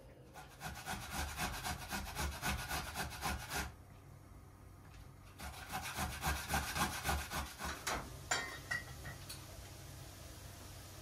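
Food being grated on a metal box grater: quick, rhythmic scraping strokes in two runs, with a pause of about two seconds between them.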